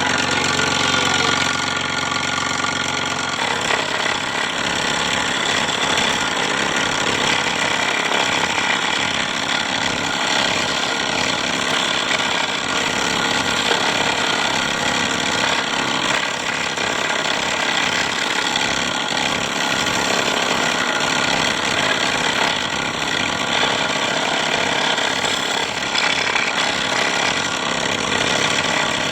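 Scroll saw running steadily with a fast rattling stroke. A low hum under it drops away about three seconds in.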